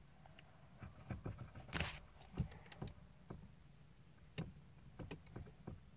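Quiet inside a parked car, broken by scattered soft clicks and knocks of someone moving in the seat and handling things.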